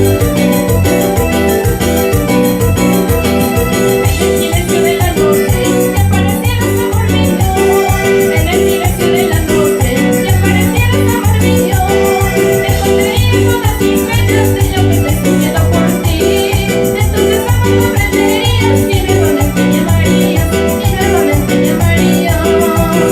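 Live music led by an electronic keyboard playing in an organ sound, with a melody over a steady bass beat.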